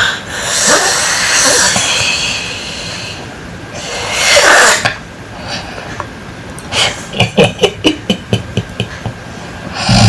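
A person snoring and snorting: breathy rasping breaths, one loud one about four seconds in, then a quick rattling run of short snorts near the end.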